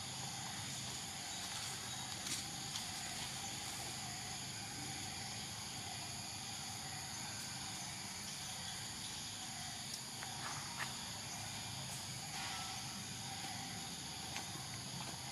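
Steady forest insect chorus, an unbroken high buzzing hum, with a few faint ticks.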